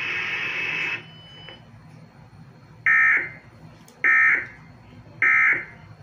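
Emergency Alert System end-of-message tones: three short, loud, buzzy data bursts, evenly spaced about 1.2 s apart, marking the end of the alert. Before them a steady hiss cuts off about a second in.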